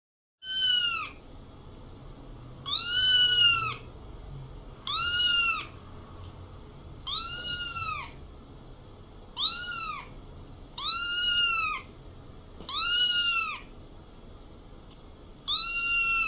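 A cat meowing over and over: eight high-pitched meows, each rising then falling in pitch, about one every two seconds.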